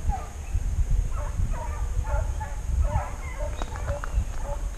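A pack of hunting hounds baying on a trail in the distance: a string of short, falling cries from several dogs, overlapping at about two a second. The hunters call this chorus the pack's "melodía", the sound of the dogs running a scent.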